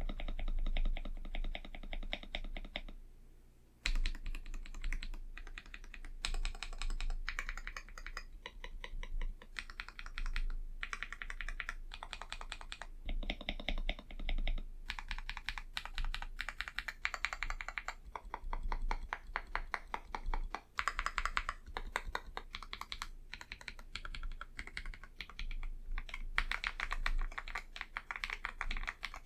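Akko 5075B Plus mechanical keyboard with Akko V3 Cream Blue switches being typed on quickly and continuously, a rapid patter of key presses, with a brief pause about three seconds in.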